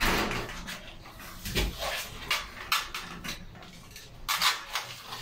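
Irregular knocks, rattles and scrapes of an aluminium-framed glass sliding-door panel being handled and fitted into its overhead track, with a cluster of sharper clacks near the end.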